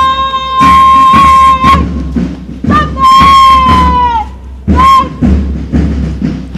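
Marching band music: a wind instrument holds long high notes, the second one sagging in pitch at its end, over a steady drum beat.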